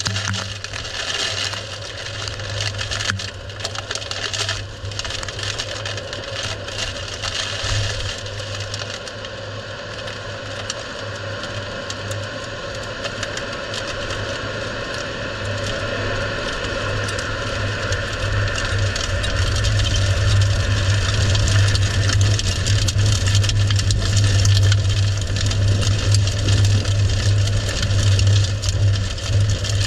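Strong wind rushing past with scattered rattling and cracking, and a steady low drone that grows much louder in the second half as the tornado's winds strengthen.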